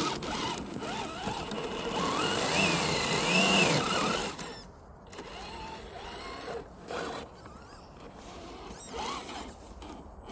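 RC car's electric motor and gear drive whining, the pitch rising and falling with the throttle over the crunch of tyres on rough ground. Loud for about four seconds, then quieter, with short bursts of revving.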